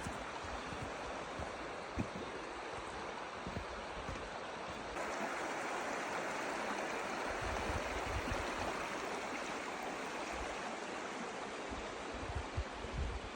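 Steady rush of a river flowing over rocks, a little louder after a cut about five seconds in.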